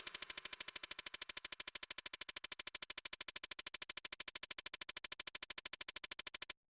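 Background electronic music: a rapid, even synthesizer pulse of about ten beats a second that cuts off suddenly near the end.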